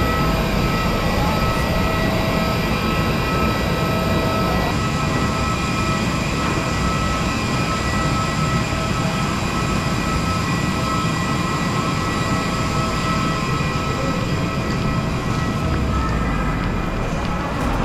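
Steady jet-turbine noise from aircraft on the apron: an even roar with a low rumble and several constant whining tones over it.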